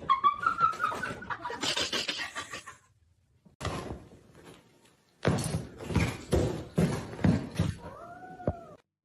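A cat yowling, one drawn-out rising call at the start, followed after a break by knocks and scuffling.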